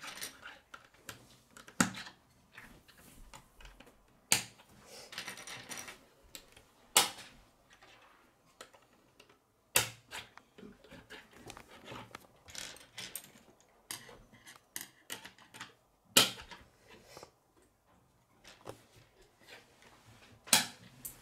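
K'nex plastic rods being snapped into connectors and plastic pieces handled on a wooden tabletop: a handful of sharp clicks a few seconds apart, with lighter rattling and scraping between them.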